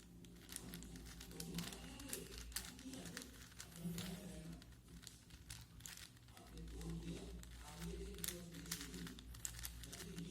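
4x4x4 Rubik's cube being turned by hand: quick, irregular clicking and clacking of its plastic layers, over a low steady hum.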